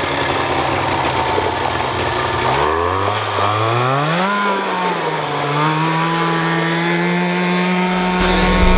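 Small two-stroke go-kart engine running at a low idle, then revved up about two and a half seconds in and held at a steady higher speed.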